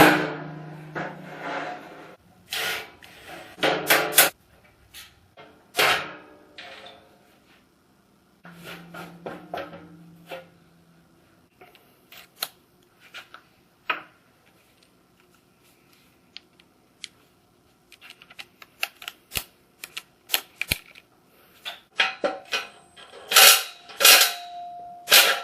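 Irregular clicks, knocks and clanks of tools and metal machine parts being handled, thickest near the start and near the end.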